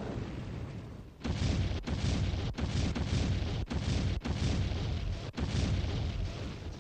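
Film sound effect of blazing torches: a loud, rushing roar of flame that starts about a second in, cutting out briefly and abruptly several times.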